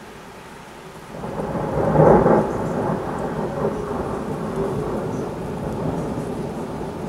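Thunder rumbling over steady rain. The first second holds only the rain's hiss; then a deep rumble builds, is loudest about two seconds in, and keeps rolling.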